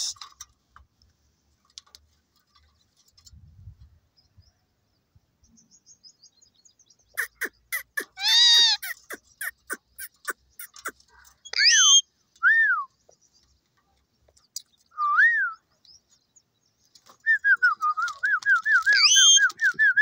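Caged ring-necked parakeets calling: after a quiet start, a quick run of harsh repeated calls, then a few separate rising-and-falling whistled calls, and a fast series of short chirps near the end.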